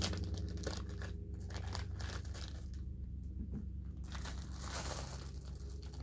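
Plastic snack bag of M&M's Popcorn crinkling in intermittent rustles as it is pulled open and handled, over a steady low hum.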